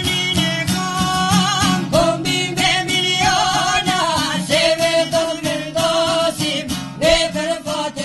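Albanian folk song: male singing with a wavering, ornamented melody over plucked çifteli and sharki lutes.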